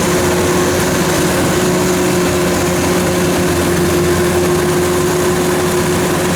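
Diesel engine of rice-harvesting farm machinery running steadily, with a constant hum over a broad mechanical noise.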